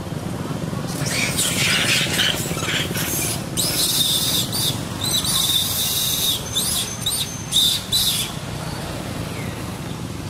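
Long-tailed macaques giving a run of shrill squeals and screeches, some calls sliding up and down in pitch, starting about a second in and stopping near the end. A steady low hum runs underneath.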